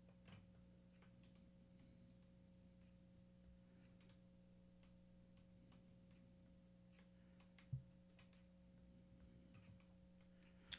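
Near silence with a steady faint electrical hum, broken by scattered faint ticks of the Akai Force's rotary encoder being turned to step through input assignments. There is one soft thump a little under eight seconds in.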